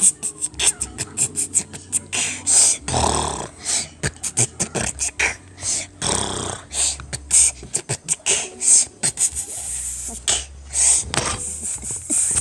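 Mouth beatboxing: a fast run of clicks and snare-like pops mixed with hissing hi-hat sounds, and stretches of low humming under them.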